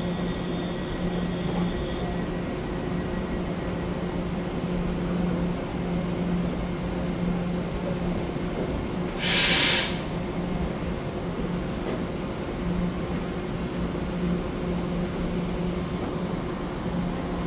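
Taiwan Railway EMU900 electric commuter train standing with its onboard equipment humming steadily, a few faint steady whines above the hum. About nine seconds in comes one sharp hiss of released compressed air lasting about a second.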